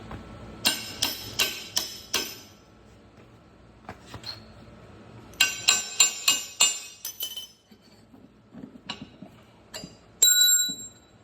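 Sharp metal-on-metal clinks and taps, in two quick runs of several strikes each, then a single clink that rings on briefly near the end: a steel axle bolt and tools being worked free from the mower's front wheel.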